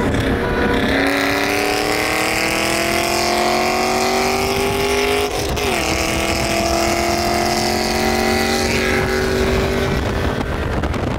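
BMW 335i's turbocharged straight-six pulling hard under full throttle, heard inside the cabin: the engine note climbs steadily, drops with an upshift about five seconds in, climbs again through the next gear, and the engine lets off about ten seconds in.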